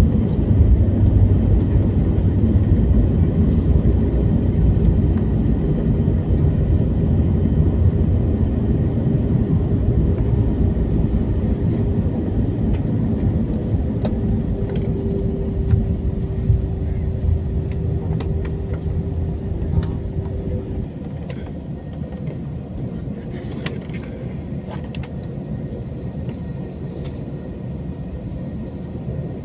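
Airliner cabin noise while taxiing: a steady low rumble, with a faint steady hum that stops about two-thirds of the way through, after which the rumble eases a little. A few light clicks sound near the end.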